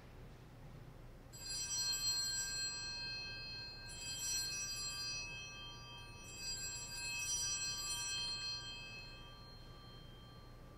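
Altar (Sanctus) bells rung three times, each ring clear and high and dying away over a couple of seconds, signalling the elevation of the host after the consecration at Mass.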